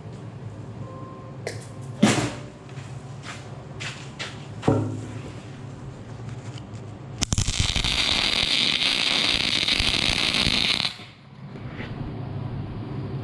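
Wire-feed welder arc running in one short burst of about three and a half seconds, starting abruptly about seven seconds in and cutting off suddenly: a short weld filling a low spot on steel wear strips of an excavator bucket. Before it, a couple of sharp metal knocks and a few light clinks.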